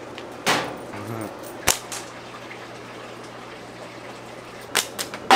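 Natural-fork slingshot being shot at targets: separate sharp snaps and cracks from the rubber bands releasing and the ammo striking, one about half a second in, a sharp one just under two seconds in, and three in quick succession near the end.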